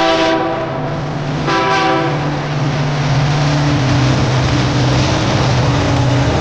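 Train's locomotive air horn ending a blast, then sounding one short blast about a second and a half in. After that comes the steady drone of the diesel locomotive running, with the train passing close by.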